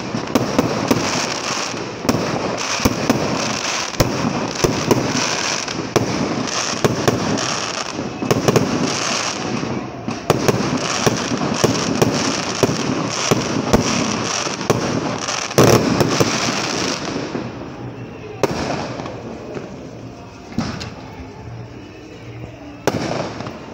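Aerial fireworks going off in quick succession, a dense run of bangs and crackling that thins out about seventeen seconds in to a few scattered bangs.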